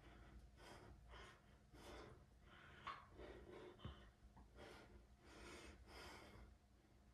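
Faint, heavy breathing of a man exerting himself during weight training, a breath about every second. Two short knocks come about three and four seconds in.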